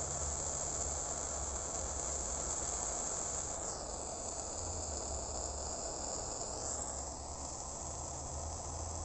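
Handheld gas torch flame hissing steadily as it heats a copper wire joint. Its tone shifts slightly about four seconds in.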